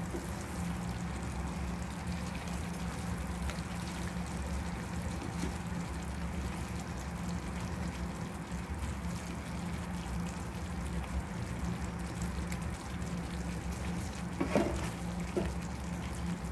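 Milk-based egg curry gravy simmering in the pan over a low flame while a wooden spatula gently stirs it, over a steady low hum. A couple of light knocks come near the end.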